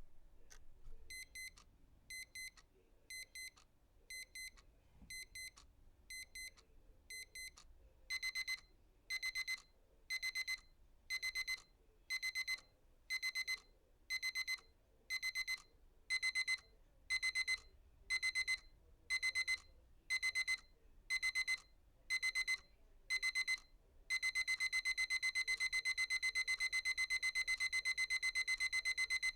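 Alarm clock beeping in short bursts of quick high beeps, about one burst a second. The bursts get louder about eight seconds in, and near the end they merge into continuous rapid beeping.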